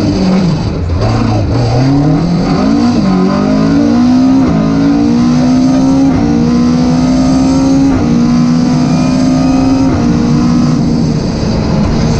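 Rally car engine at full throttle, heard from inside the car, accelerating through the gears: the revs climb and fall back with quick upshifts in the first few seconds, then hold high with small dips at each further shift, easing off slightly near the end.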